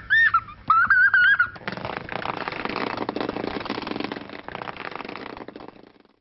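A young child's high-pitched giggling for the first second and a half, then a vibrator buzzing and rattling against a hard floor for about four seconds, fading out near the end.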